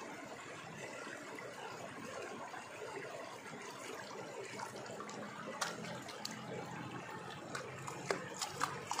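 Water sloshing and trickling in a wooden gold pan as it is swirled and dipped in river water to wash the black-sand concentrate, with a few short sharp splashes in the second half.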